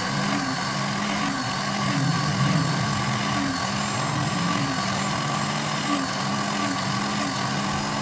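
Small bench drill press motor running steadily while the bit drills through thin bamboo strips, under background music with a stepping melody.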